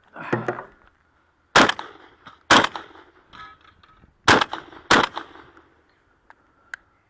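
Four shots from a Remington VersaMax 12-gauge gas-operated semi-automatic shotgun, fired as two pairs: two about a second apart, then after a pause two more a little over half a second apart, each with a short ring-out after it.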